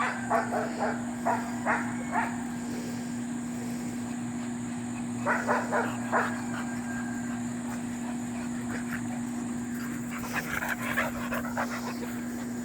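A dog barking in three short bouts of quick barks, over a steady low hum.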